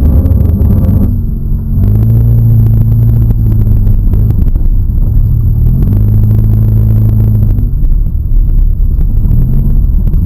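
Subaru Outback's engine revving in repeated surges, each held high for a second or two before easing off, as it works over the off-road course.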